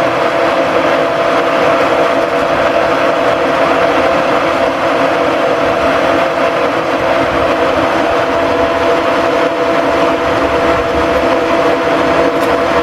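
Cincinnati No. 2 horizontal milling machine running with its table under power feed to the right: a steady whine of motor and gearing, two held tones over an even mechanical hum.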